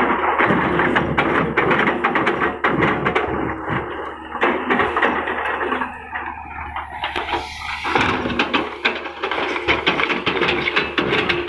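Excavator at work, its engine a steady low hum under dense crackling and rattling that swells and eases several times.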